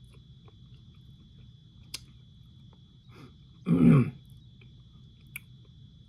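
A man's short, low throat-clearing grunt about four seconds in, falling in pitch and the loudest sound. Two small sharp clicks come before and after it, over a faint steady high tone and low room hum.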